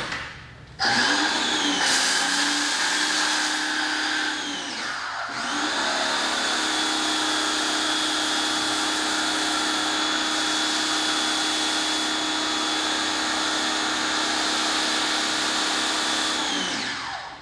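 Ryobi 1600 PSI electric pressure washer running while the Chemical Guys Big Mouth foam cannon sprays foam: a steady motor-and-pump whine over the hiss of the spray. It starts about a second in, winds down briefly around four to five seconds, starts again, and winds down with a falling pitch near the end.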